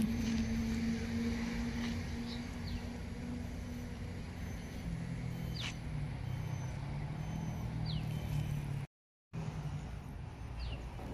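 Steady hum of a motor engine over a low traffic-like rumble, its pitch dropping a little just at the start, then a lower hum from about halfway through. A few short, falling bird chirps sound over it, and the sound cuts out for a moment near the end.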